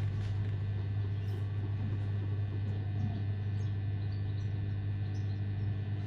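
AEG/Electrolux washing machine running with a carpet load, a steady low hum with a few faint high ticks.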